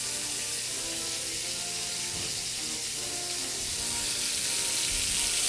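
Burger patty with a bacon crust frying in a cast iron pan: a steady sizzle that grows a little louder toward the end, over quiet background music.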